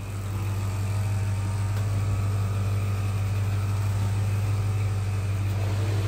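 Steady low hum of the 1966 Ford Thunderbird's 390 V8 idling, with the power convertible-top mechanism running as the top folds down.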